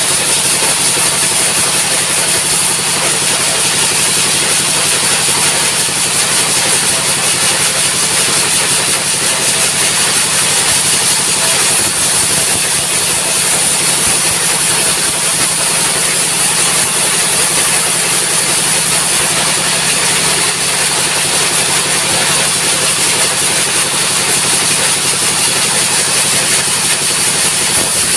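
Sawmill machinery running steadily at high throttle: a continuous loud engine drone with a steady high-pitched hiss over it, unchanging throughout.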